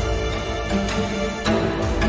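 Instrumental theme music with held chords and sharp hits about every three quarters of a second.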